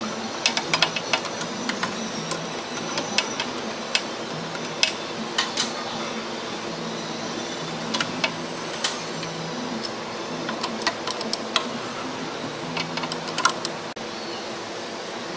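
Ratcheting combination wrench clicking and steel tools clinking against a fuel line fitting, in scattered bursts of sharp clicks over a steady fan-like shop hum.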